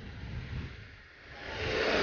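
A motorcycle approaching and passing close by, its rushing noise swelling sharply in the second half.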